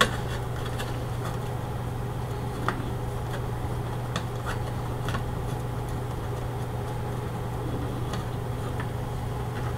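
Steady low electrical hum of room background, with a few faint, scattered clicks of small parts being handled as a threaded connector is turned onto a circuit board by hand.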